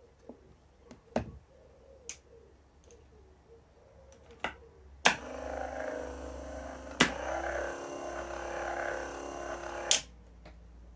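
Rebuilt Lucas 16W windscreen wiper motor on a bench test: a few light clicks, then from about five seconds in the motor runs with a steady whirr. Its note steps higher at a click about two seconds later, and it stops with a click about a second before the end. The motor is running normally.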